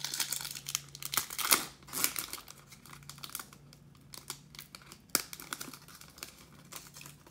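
Foil wrapper of a trading-card pack being torn open and crinkled by hand, the crackling loudest in the first two seconds or so, with a single sharp tick about five seconds in.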